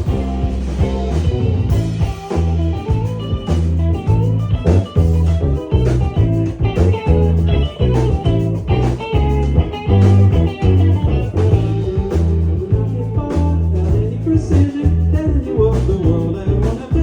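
Live band playing a rock song: electric guitar over heavy bass and drums.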